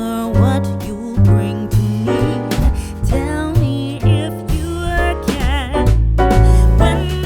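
Background music: an upbeat song with a sung melody over bass and a steady beat.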